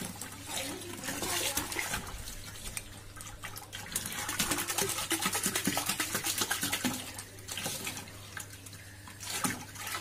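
Water from a garden hose pouring and splashing into the nearly full wash tub of a Sharp washing machine as it fills, a little louder for a few seconds in the middle.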